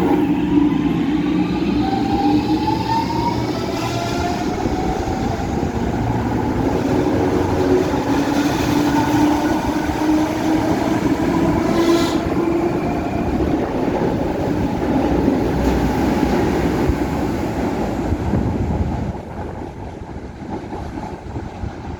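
Série 2070 diesel-electric locomotive pulling away under heavy load, its engine roaring while the wheels slip on the rails. A rising whine runs through the first few seconds, one sharp bang comes about halfway through, and the sound drops off a few seconds before the end.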